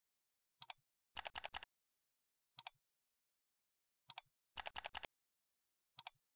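Computer mouse clicks and keyboard typing: a single mouse click, a run of five quick keystrokes, two more clicks, another run of five keystrokes, and a last click near the end, with dead silence in between.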